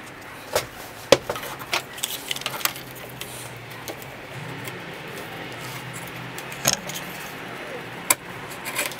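Scattered light clicks and taps as small oak dovetail pieces, a trigger clamp and a chisel are handled on a wooden workbench, over a low steady hum.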